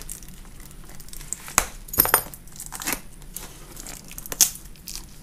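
Keyboard box packaging being cut and opened: crinkling and tearing with about five sharp clicks and snaps scattered through.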